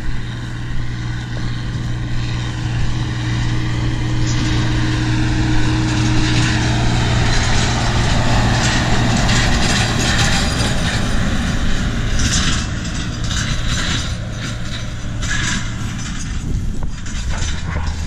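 John Deere 4240 tractor's six-cylinder diesel running steadily under load as it pulls a roller crimper, growing louder as it comes close about halfway through, then easing off. Short rough bursts of buffeting on the microphone in the second half.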